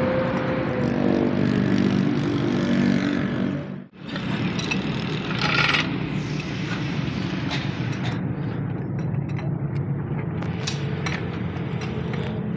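Car driving, with engine and road noise and scattered short knocks, at a front end that makes a bad noise over uneven road. The sound cuts off abruptly about four seconds in and picks up again.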